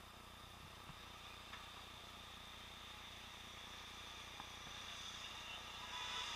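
Faint, muffled city traffic heard through a sealed waterproof camera housing, mostly a steady hiss, growing a little louder near the end.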